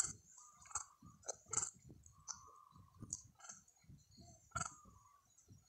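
A long-tailed macaque chewing food with its mouth open: faint, irregular clicks and crackles.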